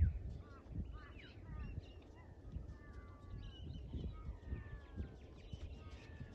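Wild birds calling and chirping, many short sliding whistled calls overlapping, over a low irregular rumble.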